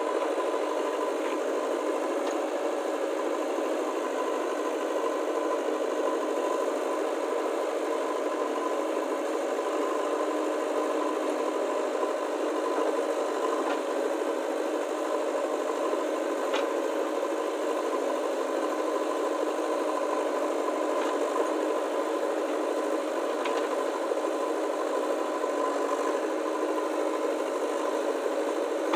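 JCB 3DX Eco backhoe loader's diesel engine running steadily under load while the backhoe digs, with a few faint clicks along the way.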